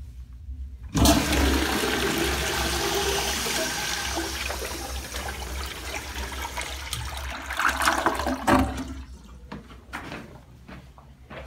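Universal Rundle 1.6 gpf toilet flushing: a sudden rush of water starts about a second in and slowly tapers off, with a couple of louder surges about eight seconds in before it dies away.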